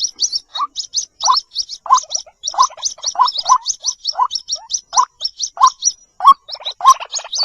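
White-breasted waterhen calls played as a lure: a fast string of high chirps, about five a second, over lower rising croaks roughly every half second or so. The croaks break into a rapid gurgling rattle near the end.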